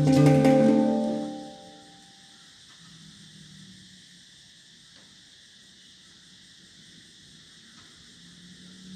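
Handpan notes ringing out and fading away over the first two seconds, after the last strokes. After that, only a steady, quiet, high-pitched chirring of insects remains.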